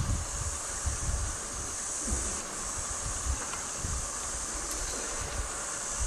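Steady, high-pitched chorus of insects chirring, with gusts of wind rumbling on the microphone.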